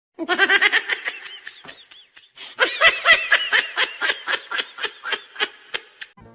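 A person laughing hard in two fits, high-pitched and in quick repeated bursts. The second fit is longer and slowly trails off.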